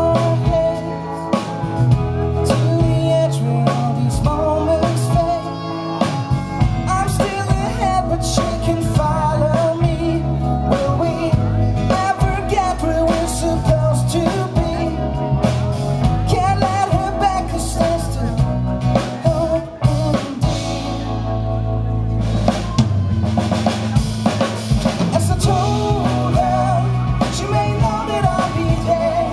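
Live pop-rock band playing a song: acoustic guitar, electric bass, keyboard and a drum kit keeping a steady beat, with a male voice singing over them.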